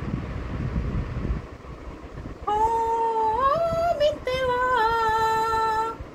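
A woman singing a long wordless held note that steps up in pitch, then back down, lasting about three and a half seconds in the second half. Before it, low rumbling handling noise on the earphone microphone.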